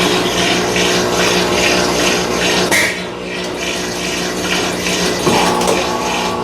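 Electrolux LF90 washing machine running with a load of rugs: a steady motor hum under water swishing that pulses a few times a second, briefly easing about three seconds in.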